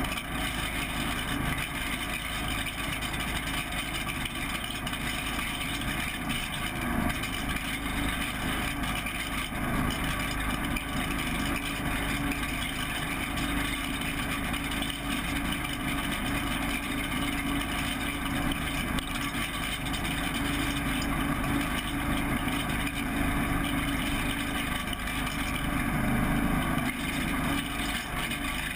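Riding lawn tractor's small engine running steadily while the tractor is driven, heard close up.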